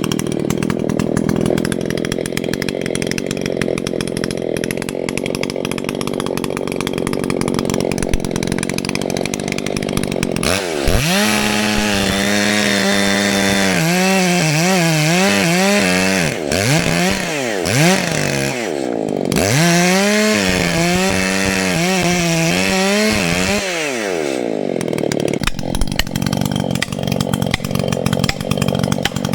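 Two-stroke Echo CS-620PW chainsaw cutting into a large dead tree trunk at full throttle. From about ten seconds in, the engine's pitch dips and recovers several times as it loads and unloads in the cut. Near the end it settles back into a steady cut.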